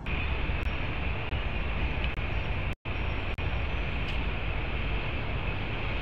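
Freight train rolling through the rail yard below, a steady rumble with a constant higher noise band above it. The sound briefly cuts out about three seconds in.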